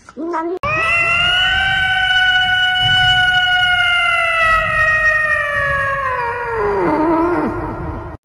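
A cat's single long, drawn-out yowl, held nearly level in pitch for about six seconds, then sliding down and trailing off near the end. A brief meow comes just before it.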